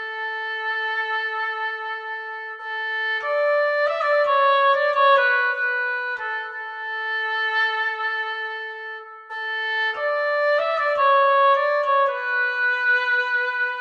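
Infinite Woodwinds virtual oboe playing a slow solo melody, raw with no EQ applied, in a reverberant space. Long held notes alternate with shorter phrases of stepwise note changes.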